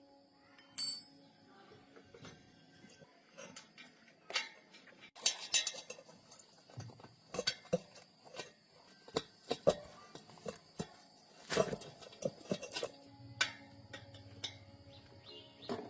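Irregular metallic clinks, taps and knocks of tools and small metal parts being handled, busiest in the middle, over faint background music.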